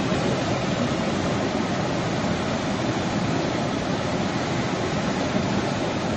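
Muddy floodwater of a river in spate rushing and breaking over a tractor and trolley stuck midstream: a steady, even rushing noise.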